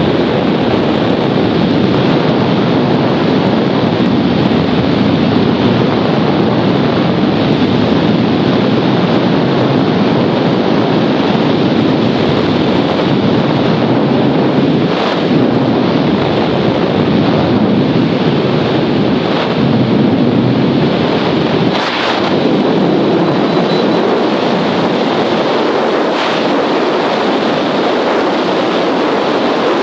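Wind rushing steadily and loudly over a camera microphone mounted on a hang glider, with a couple of faint knocks about halfway through.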